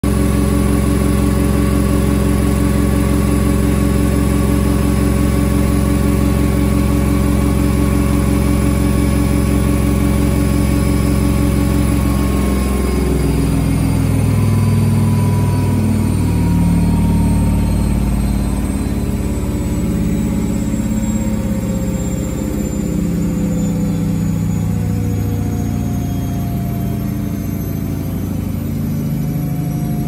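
Front-loading washing machine spinning: a loud steady motor whine and hum, then from about twelve seconds in the whine slowly falls in pitch and the low hum turns uneven as the drum slows.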